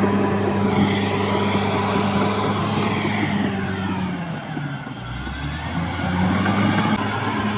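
CAT D6R XL bulldozer's diesel engine running under load. Its note sags and drops in pitch about four and a half seconds in, then climbs back about a second later.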